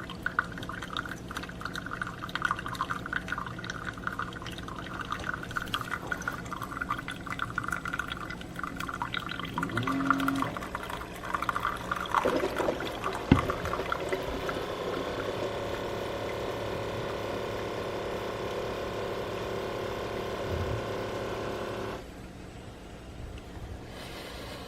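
Keurig K-Supreme Plus single-serve coffee maker brewing: coffee spluttering and streaming into the cup, with a knock about halfway. Then a steady hum from the machine that cuts off suddenly near the end as the brew finishes.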